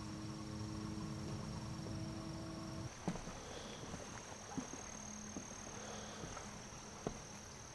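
Faint woodland ambience with a steady high insect drone, and a few soft knocks about three, four and a half and seven seconds in.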